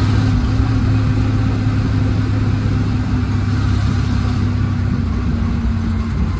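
1948 Dodge Power Wagon's flathead straight-six engine pulling steadily while the truck drives, heard from inside the cab together with road and cab rattle noise.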